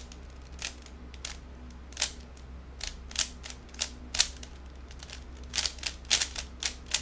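A 3x3 speed cube being turned by hand, its plastic layers clacking in a run of quick, uneven turns as a last-layer (COLL) algorithm is performed. The clacks come faster and louder in the second half.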